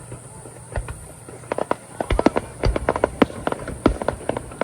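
Fireworks going off in quick succession: sharp cracks and pops, a few at first and then a dense crackling run from about one and a half seconds in, with some heavier booms among them.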